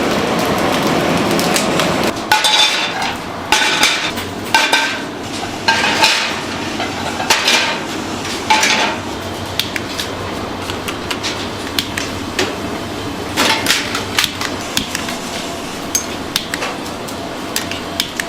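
Metal kitchenware clanking: sharp strikes with a short ringing tone, about one a second for several seconds, then lighter clinks.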